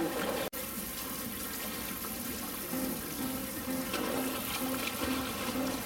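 Steady rush of running water, cut off for an instant about half a second in.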